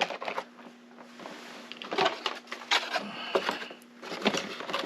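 Intermittent light clicks and plastic rattles from handling a key and a lock's plastic retail package, with a quieter pause between them.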